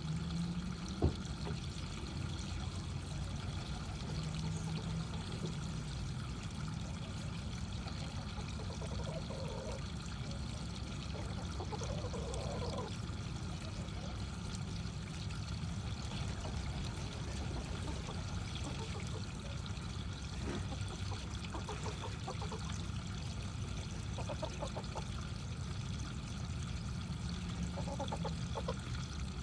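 Backyard pond waterfall pouring and trickling steadily, with a single sharp knock about a second in.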